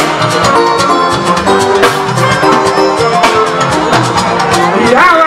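Live Fuji band music: dense drums and percussion under held melodic notes, with a sung phrase rising in pitch near the end.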